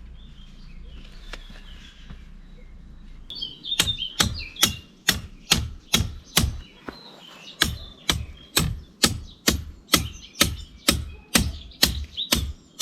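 A hammer pounding a steel rod into the ground to anchor a corner paving slab: sharp metallic strikes at a steady pace of about two a second, starting about four seconds in. Birds chirp faintly before the hammering begins.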